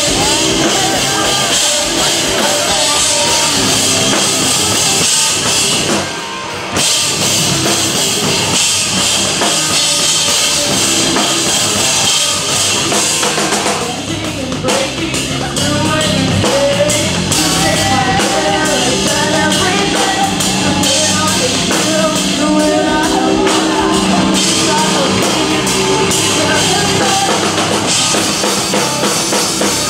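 Rock music with a drum kit and bass drum and a singing voice over it, dipping briefly about six seconds in.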